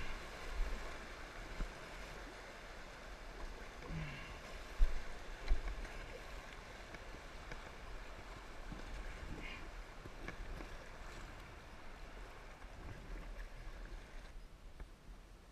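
Rushing whitewater of a shallow, rocky creek riffle churning around a kayak, with a low rumble and a couple of sharp knocks about five seconds in. The rush drops away shortly before the end as the boat reaches calmer water.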